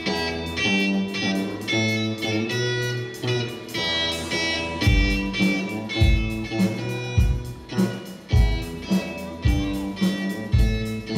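Live rock band starting a song: electric guitars through amplifiers play the opening riff, and about five seconds in the drums come in with a regular kick-drum beat about once a second.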